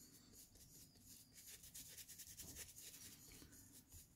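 Faint, repeated scratching of a stiff bristle brush scrubbed against canvas fabric as it wets the cloth with thinner.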